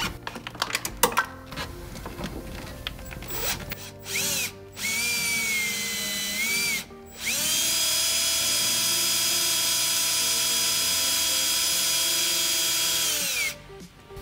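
A few sharp clicks and knocks, then a cordless drill whines as it bores a pilot hole into the centre of a broken exhaust manifold stud. After a brief trigger blip it runs for about two seconds, pauses, then runs steadily for about six seconds and winds down near the end.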